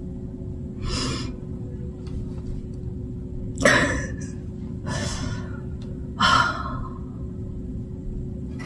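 A person taking four deep, audible breaths, the loudest a little past the middle, over a steady low hum: the breathing of someone trying to collect herself while emotional.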